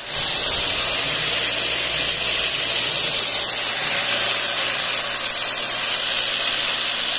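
Tumbling polishing machine ('pipoqueira') running with a load of wooden balls being polished inside, a steady, even hiss-like noise.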